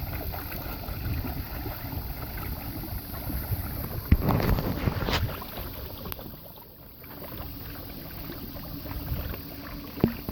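Wind buffeting the microphone over water splashing against a sailing kayak's hull, with a louder rush of splashing about four seconds in. A sharp knock comes near the end.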